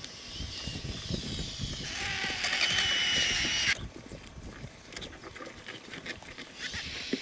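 Vultures squabbling over a carcass: a harsh hissing and squealing builds and cuts off sharply about four seconds in, followed by quieter clicks, pecking and rustling of the feeding crowd.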